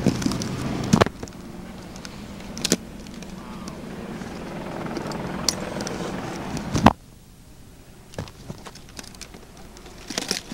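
Camcorder handling noise: a steady rumble of clothing and hands rubbing over the microphone. Sharp knocks come about a second in, near three seconds and loudest near seven seconds, after which the rumble drops away to a quieter hiss with a few clicks.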